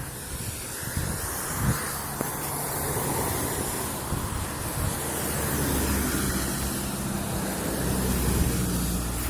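Rain falling steadily, a continuous hiss, with a motor vehicle's engine running close by and a low steady hum that builds after the first couple of seconds.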